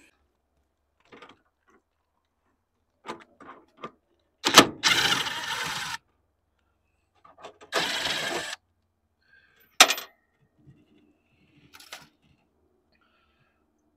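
Cordless drill-driver run twice, for about a second and a half and then about a second, backing screws out of the generator's sheet-metal access panel. A sharp metallic click comes just before the first run and another about a second after the second, with scattered small clicks and rattles of metal parts.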